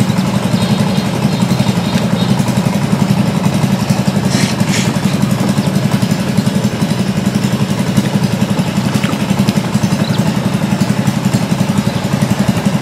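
Small boat engine running steadily with a fast, even low drone. A brief hiss comes about four and a half seconds in.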